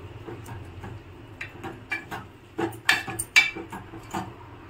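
A steel spoon clinking and scraping against a metal pot while stirring chopped spinach, in irregular knocks, the loudest a few taps about three seconds in.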